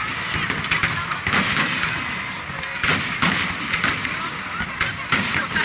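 Aerial firework shells bursting overhead one after another: several loud booms a second or so apart, with many smaller pops in between.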